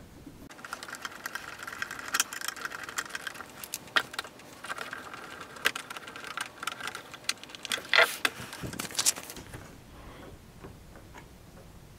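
Screwdriver turning small screws into a 3D-printed plastic clock frame: a fast, rattling run of small clicks with a few sharper clicks, stopping about nine and a half seconds in.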